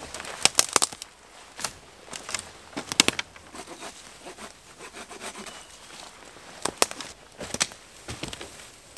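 Sharp snaps and cracks of twigs and small branches on a fallen conifer, with rustling of its foliage. A cluster of cracks comes in the first second, another about three seconds in, and a few more near the end.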